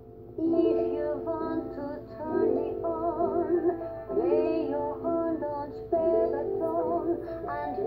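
Recorded jazz song playing: a wordless sung melody with wide vibrato over sustained band chords, in phrases of about two seconds, coming in about half a second in.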